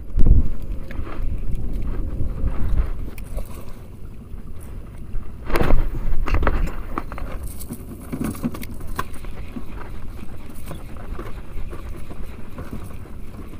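Wind rumbling on the microphone over choppy open sea from a small boat, with a loud jolt at the start and a few sharp knocks about six seconds in.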